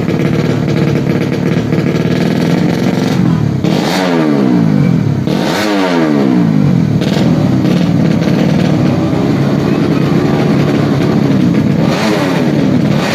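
Tuned 130cc four-stroke underbone (bebek) drag bike engine running at a steady high idle and blipped hard three times: about four seconds in, a second and a half later, and near the end. After each blip the revs slide back down.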